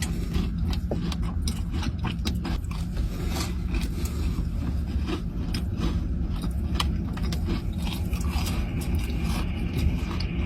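Close-up chewing of a soft frosted birthday cake cookie, with many small wet mouth clicks, over a steady low rumble.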